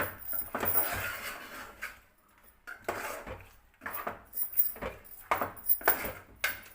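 A spoon stirring chicken and ground masala paste in a cooking pot. It scrapes steadily against the pot for about two seconds, then, after a short pause, clinks and knocks against it repeatedly.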